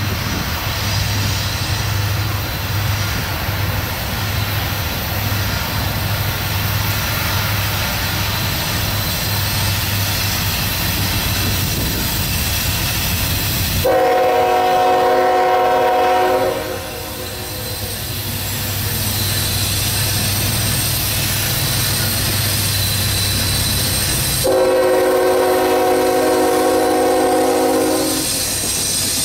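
Norfolk Southern diesel freight locomotives approaching with a steady, low, pulsing engine rumble. The lead locomotive's air horn sounds two long blasts, one about 14 seconds in and a longer one about 24 seconds in.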